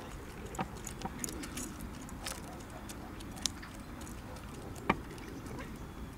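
Chickens pecking seed from a plastic tub: irregular sharp taps and clicks of beaks striking grain and the plastic, a few of them louder.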